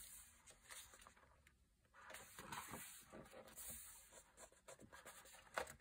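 Faint rustling and sliding of a thick paper page being turned over in a coloring book.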